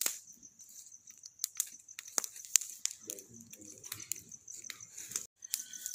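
Bonfire crackling: irregular sharp pops and snaps over a faint steady hiss, with a softer low rustle about halfway through.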